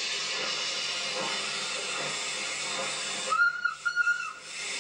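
Steady steam hiss from a steam locomotive, then its steam whistle sounding two short blasts about three seconds in.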